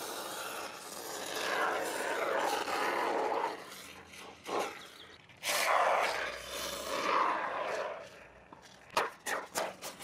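Aerosol can of AquaForte Landscaping Foam hissing as the foam is sprayed into the gaps between stones. It comes in two long squirts of a few seconds each with a short one between them, and a few quick clicks near the end.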